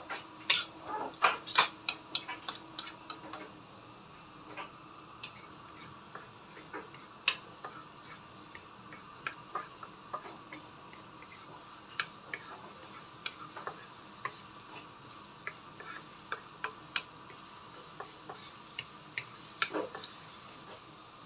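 Chopped garlic frying in olive oil in a nonstick pan: scattered small pops and crackles over a faint sizzle, busiest in the first few seconds, with a wooden spatula stirring and tapping against the pan.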